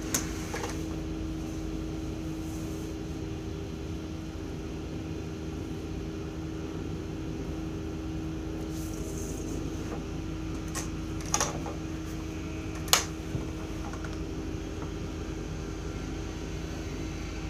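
Steady hum of a window air-conditioning unit running, with a constant low tone. A few light clicks and taps from drafting tools on the table break through, two sharper ones about two-thirds of the way in.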